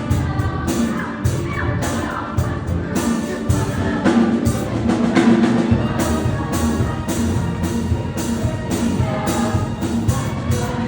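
Musical theatre band playing a loud, driving instrumental passage with a steady drum beat.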